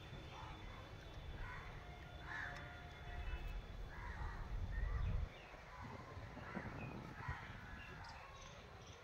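Crows cawing now and then in the background, with a low rumble that builds through the middle and cuts off suddenly about five seconds in.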